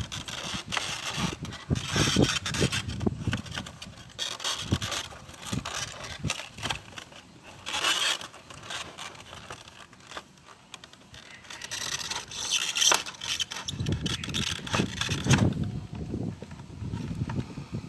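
Packaging crinkling and rustling in irregular bursts as chocolate bars are handled and unwrapped, with a few duller handling knocks near the end.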